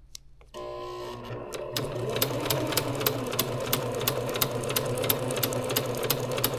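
Janome HD 3000 sewing machine stitching vinyl: the motor starts about half a second in, picks up speed, and settles into a steady run of needle clacks at about three stitches a second, then stops abruptly at the end.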